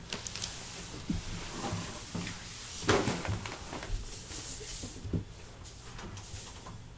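A few soft knocks and thuds with some rustling as someone moves about and handles things in a small room, the loudest knock about three seconds in.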